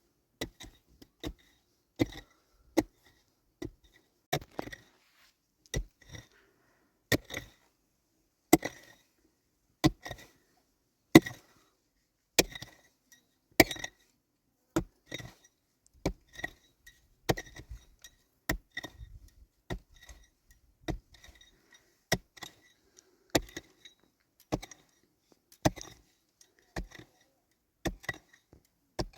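Repeated sharp strikes of a hand tool, roughly one a second at an even pace, each with a short high ring.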